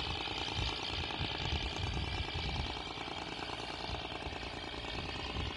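A boat's engine running steadily with a fast, even rattle over an uneven low rumble.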